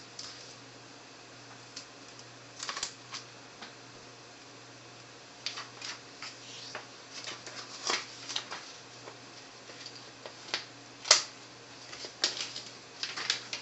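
Protective plastic film being peeled off a new laptop LCD screen, crinkling and crackling in irregular clicks, with one sharp snap about 11 seconds in.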